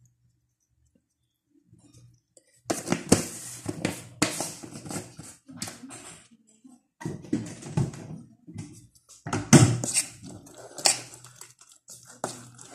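A plastic jar shaken and knocked to tip flour out over a bowl, then a spoon scraping and stirring in a ceramic bowl. It comes in bursts of knocks and rustles that start about two and a half seconds in, after near silence.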